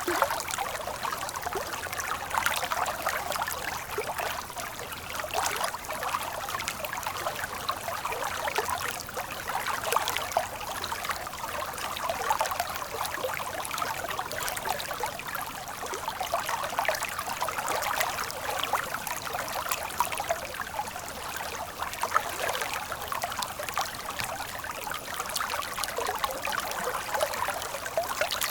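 A stream of water flowing steadily, with a constant babble of small splashes and trickles and no deep rumble.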